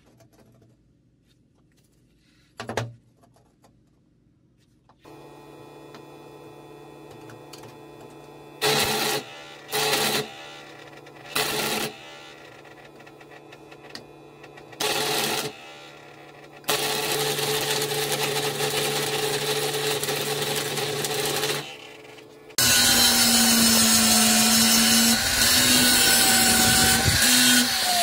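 Steel flat bar clanks once on concrete, then a stick welder hums while the arc crackles in four short tack welds and a longer weld run of about five seconds. Near the end an angle grinder starts and grinds the welds, the loudest sound.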